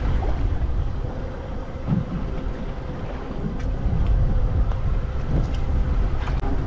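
Wind buffeting the microphone aboard a small motorboat on choppy sea, a loud steady low rumble with a faint steady engine hum running through it.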